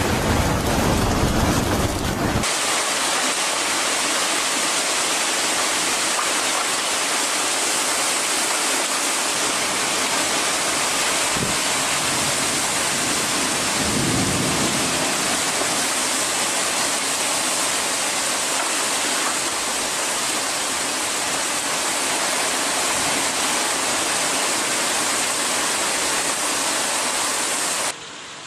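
Hurricane storm noise: wind-driven heavy rain making a steady, loud hiss. For the first couple of seconds there is a deeper rumble of wind buffeting the microphone, which cuts off abruptly.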